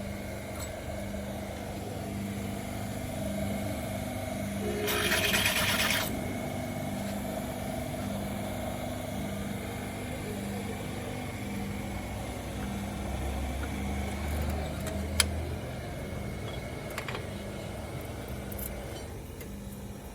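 Engine running steadily with a hum that pulses about once a second, a short burst of hissing about five seconds in, and a few sharp clicks.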